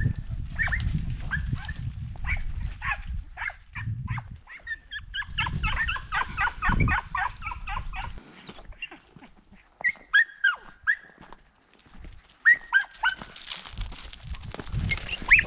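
Podenco hunting hounds yelping in short, high-pitched cries: a quick run of several yelps a second around the middle, then scattered single yelps. The dogs are giving tongue as they hunt rabbits.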